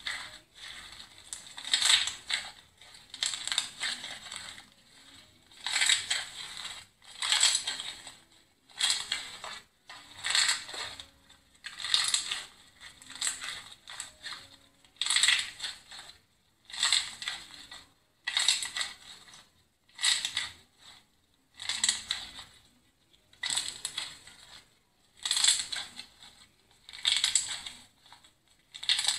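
Iceberg slime crackling and crunching as hands squeeze and fold it, its hardened crust breaking up. It comes in repeated bursts, about one every one and a half seconds.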